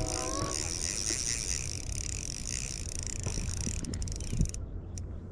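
Wind rumbling on the microphone under a steady high hiss. A chord of held tones fades out in the first half second, and a few faint ticks come near the end.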